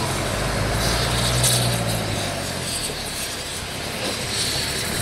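A heavy road vehicle running steadily with a low hum, louder in the first two seconds, with short patches of high hiss about three times.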